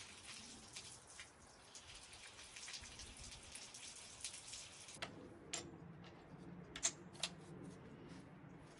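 Water running through an electric pressure washer's open spray gun before the motor is switched on, priming the pump: a faint spattering hiss. About five seconds in, a few sharp clicks and a faint low hum join it.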